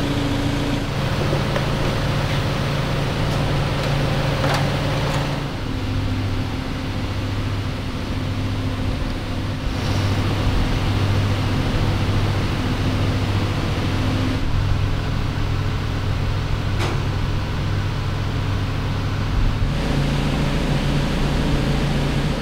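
Forklift engine running steadily while it lowers a suspended diesel engine. Its low note drops about five seconds in and rises again near the end, with a couple of sharp knocks along the way.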